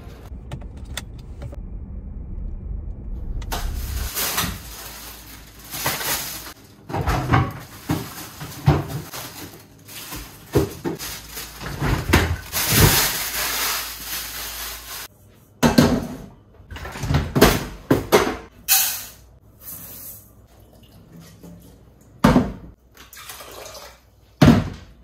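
A thin plastic shopping bag rustles and crinkles in bursts as groceries are unpacked, followed by scattered knocks and clunks of kitchen handling. A low outdoor rumble runs under the first few seconds.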